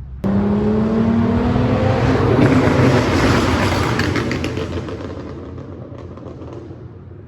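Hyundai Genesis Coupe's 3.8 V6 with catless test pipes accelerating hard, its pitch rising, then dying away with crackles and pops from the exhaust.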